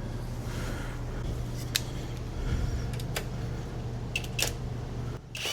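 Steady low shop hum with a few light metallic clicks and clinks of suspension parts and tools being handled. Near the very end a rising whine begins as a power tool starts up.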